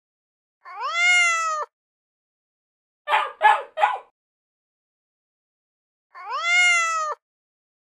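A cat meowing: one long meow that rises then falls about a second in, three short, rough calls around three seconds in, then the very same long meow again near the end, with dead silence between.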